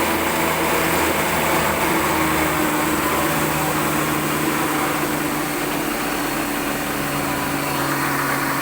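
ВШ-160-5С woodworking machine running with a steady mechanical hum, holding several constant tones.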